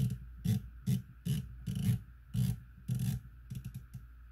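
Elevation turret of a Vortex Venom 5-25x56 rifle scope being turned by hand in quick bursts, each burst a run of detent clicks mixed with fingers rubbing the knurled cap. There are about seven bursts half a second apart, then a few single clicks near the end.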